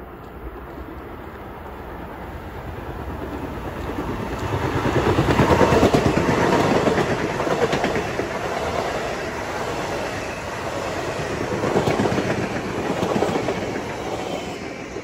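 Long Island Rail Road electric multiple-unit commuter train passing through at speed, its wheels clattering over the rail joints. The sound builds as it approaches, is loudest about six seconds in, swells again near the end and then fades as the last car goes by.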